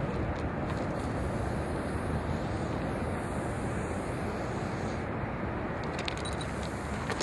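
Steady low rumble of wind on the microphone, with a few faint clicks near the end.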